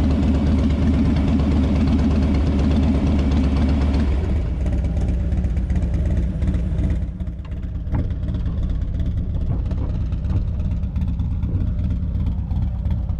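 Motorcycle engine running steadily; about four seconds in its note drops and gets a little quieter, settling toward an idle.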